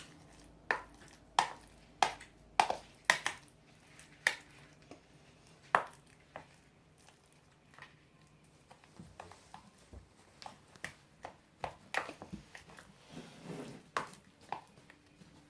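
A spoon knocking against a bowl while stirring a glue slime mixture: sharp clicks about every half second for the first six seconds, then softer, scattered taps and scraping.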